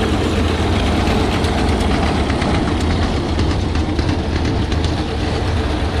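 Tractor engine running steadily under load, pulling a New Holland 848 round baler whose pickup and chamber mechanism rattle along with it as the bale nears full.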